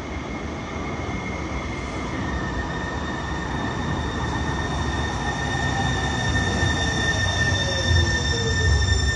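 Siemens S700 light rail train pulling into the station, growing steadily louder: steady high-pitched tones throughout, a whine that falls in pitch in the second half as the train slows, and a low rumble rising near the end as the cars pass close.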